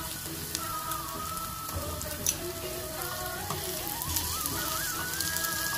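Chopped onion, spring onion and green chillies sizzling as they fry in oil in an aluminium pan, with a few clicks and scrapes of a steel spatula stirring them. Soft background music plays alongside.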